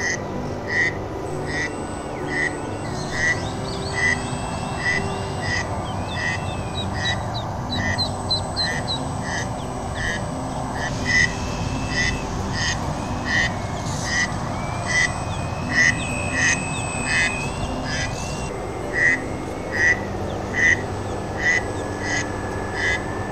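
Ducklings peeping over and over, short calls about two a second, with a steady low rumble underneath.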